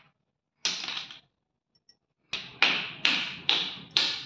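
Shards of a terracotta clay pot being snapped and knocked against a concrete floor: one sharp crack about half a second in, then a quick run of about six clacks near the end.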